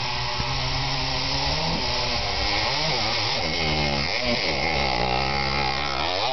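Dirt bike engine revving hard up a steep trail climb. Its pitch rises and drops again several times with throttle and gear changes as the bike comes up the slope and passes close by.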